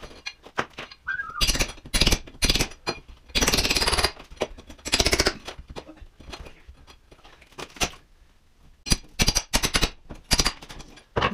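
Hammer driving a pry bar into ceramic wall tile and plaster below a window sill, chipping it away: irregular clusters of sharp strikes, with a lull around the middle.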